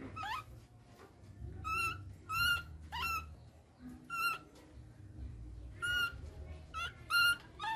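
Baby macaque giving a string of short, high-pitched calls, each rising and then falling, about nine in all at uneven intervals: an infant's distress calling while left alone.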